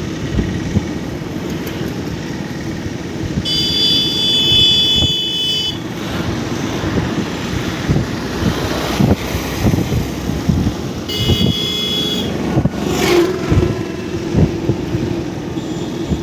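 Engine of a vehicle running while travelling over a bumpy dirt track, a steady low hum broken by irregular knocks. A vehicle horn sounds twice: for about two seconds at about three and a half seconds in, then for about a second at about eleven seconds in.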